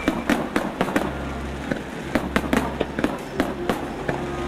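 Irregular sharp cracks and pops, about three a second, over a steady low hum.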